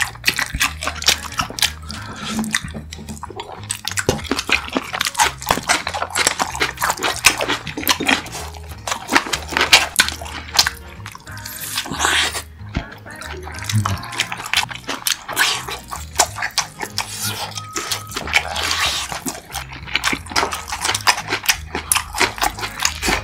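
Close-miked eating sounds: biting and chewing sausage and fried food, with many quick wet mouth clicks and smacks, over background music.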